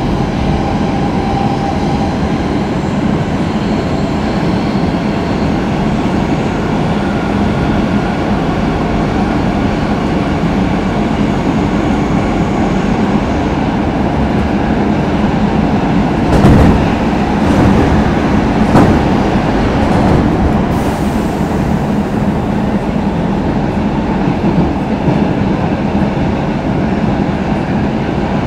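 Stockholm Metro C6 subway car running along the line, heard from inside the passenger compartment: a steady rumble with a low hum. A cluster of sharp wheel clacks over the track comes a little past halfway through.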